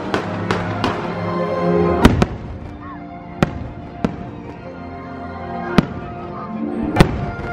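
Fireworks bursting over the fireworks show's music: a quick run of crackles in the first second, then separate sharp bangs, two close together about two seconds in and the loudest one near the end.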